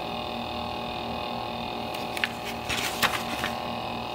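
Electric milk frother running steadily with a quiet hum as it whisks milk, with paper rustling as a booklet page is turned about two to three seconds in.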